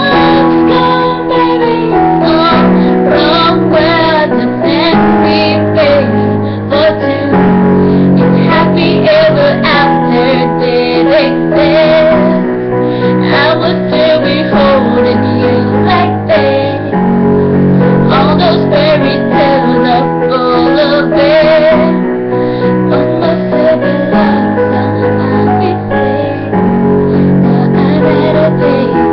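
Pop song: a young female voice singing a melody over keyboard, bass and a steady beat.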